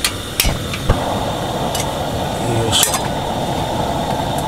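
Uniflame UL-X cassette-gas lantern being lit: a few sharp metallic clicks at its igniter. About a second in the gas catches on the mantle and a steady hiss of burning gas runs on, with two more clicks later.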